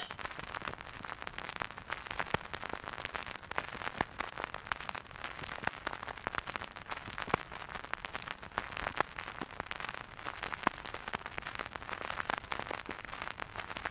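Faint, steady crackling hiss dotted with many sharp clicks.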